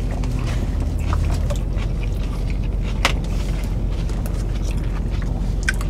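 Steady low hum of a car idling, heard inside the cabin, with faint chewing and small clicks from eating. One sharp click about three seconds in.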